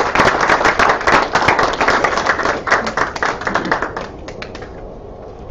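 A small audience applauding, the clapping fading out about four seconds in.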